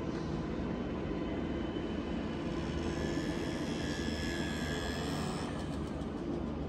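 Steady engine and road noise of a vehicle driving slowly.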